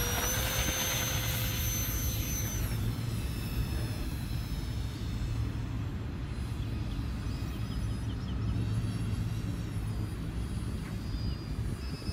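Electric ducted fans of a remote-control flying car model at full power, a high steady whine that drops and fades about three seconds in as the model takes off and flies away.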